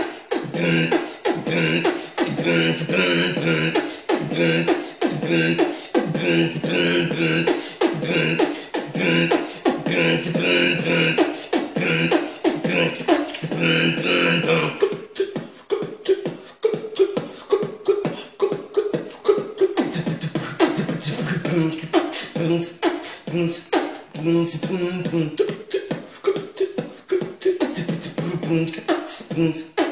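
A man beatboxing: fast, steady mouth percussion with a hummed tune carried over the beat. About halfway through the higher part of the tune drops away and a lower-pitched vocal line continues with the beat.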